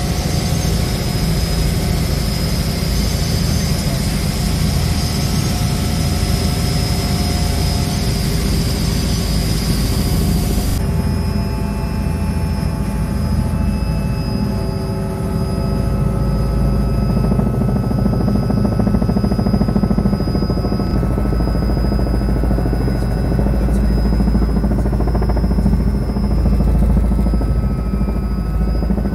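Helicopter engine and rotor noise heard from inside the cockpit in steady cruise, a constant drone with a steady high whine. About eleven seconds in, the high hiss drops away.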